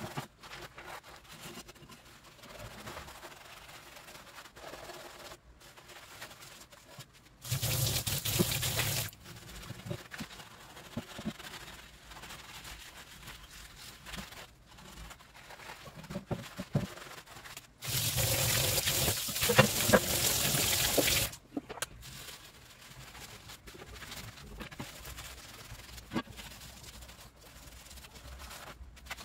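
Water running twice onto steel diamond plate in a laundry sink, each time started and stopped abruptly, the second time for about three seconds, while the vinegar rust-removal paste is rinsed off. Between the two runs there is quieter rubbing and light knocks as the plate is scrubbed and handled.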